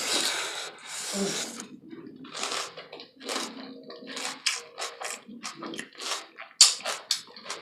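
Close-miked eating sounds: chewing and crunching of a taco salad in short, irregular bursts, with one sharp click about six and a half seconds in.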